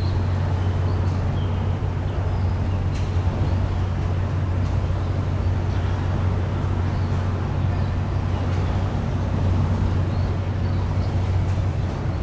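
A steady low drone under an even outdoor rumble, unchanging throughout, with a few faint short high chirps now and then.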